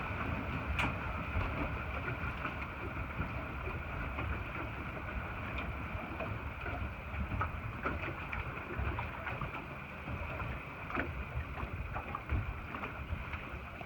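Steady noise of a small boat under way on open water: wind rumbling on the microphone over water and hull sounds, with a few faint knocks.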